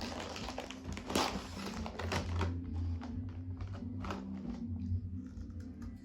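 Crunchy chips being bitten and chewed close to the microphone, an irregular run of crisp crackles and clicks over a steady low hum.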